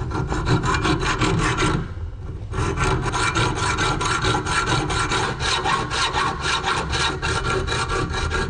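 Hacksaw with an English Eclipse blade cutting through the steel end of a shotgun's hinge pin held in a vise, in steady back-and-forth strokes, with a short pause about two seconds in.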